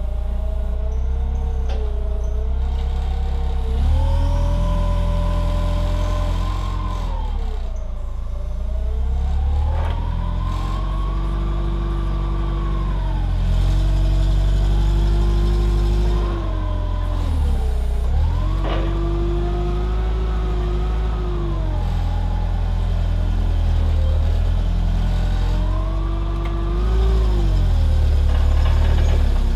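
Yale propane forklift engine running and repeatedly revving up, holding a few seconds and dropping back, about four times, as the forks and mast are worked to set a log down. There is one sharp click partway through.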